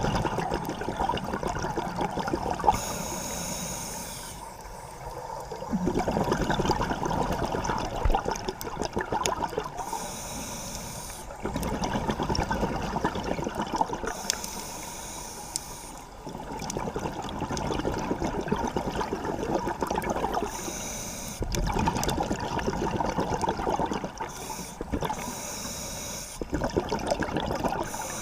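A scuba diver breathing through a regulator underwater: a short hiss on each inhale, then a long rush of exhaled bubbles, repeating about every four to five seconds.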